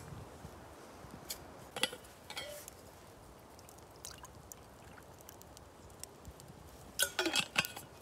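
Water poured from a bottle into the metal base of a moka pot, a faint steady trickle. A few sharp clicks come early on, and a short clatter of knocks near the end.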